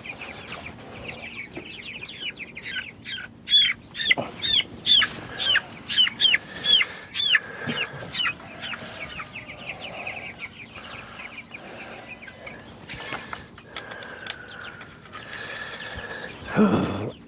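Young meat-bird chicks peeping, a run of short, high, downward peeps at about two a second that is loudest in the first half; the birds are chilled after a storm. A brief louder noise comes near the end.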